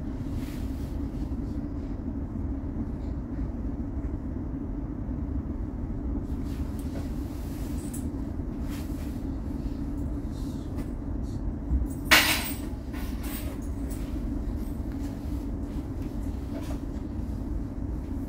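Steady running rumble and hum inside a moving underground light-rail car. A single sharp clack comes about twelve seconds in, with a few fainter clicks along the way.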